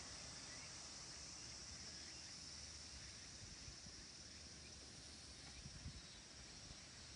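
Near silence outdoors with a faint, steady high-pitched insect chorus, and a few soft low thumps about five to six seconds in.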